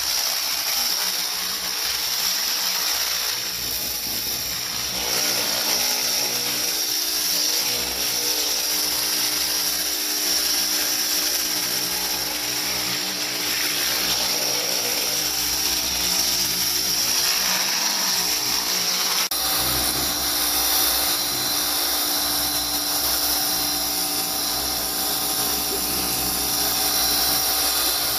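DeWalt 20-volt battery pressure washer running: the whine of its motor and pump with the steady hiss of the water spray. About two-thirds of the way through the sound shifts and gains a fuller low rumble.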